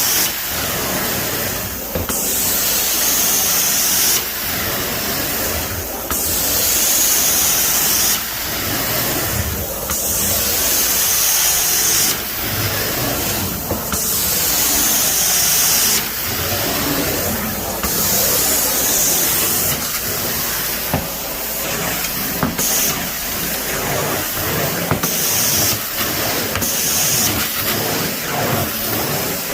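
Carpet cleaning wand on a Mytee Escape electric truckmount doing hot-water extraction: a steady loud hiss of spray and vacuum suction, broken by a short dip about every two seconds as the wand is worked in strokes across the carpet.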